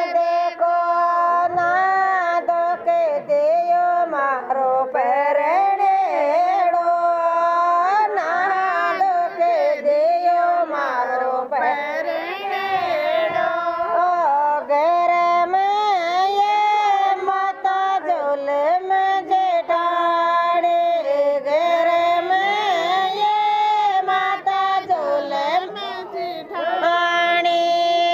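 Women's voices singing a Rajasthani jawai geet, a folk song for the son-in-law, as one continuous melodic line that rises and falls.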